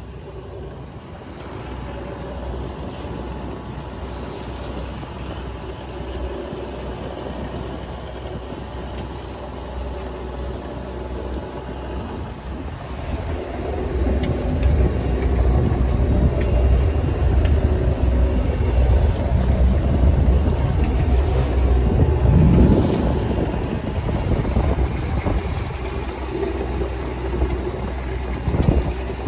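Sailboat's engine running steadily under way, a low hum mixed with wind on the microphone and water rushing past the hull. It gets louder about halfway through.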